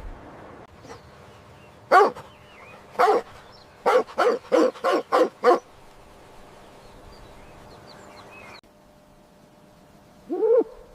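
A dog barking: two single barks a second apart, then a quick run of about six barks. A short call follows near the end.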